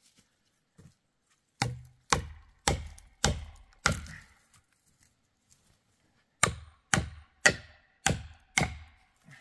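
Axe blows into dead ponderosa pine wood in two runs of five, about two strikes a second, each with a brief ring and a pause between the runs.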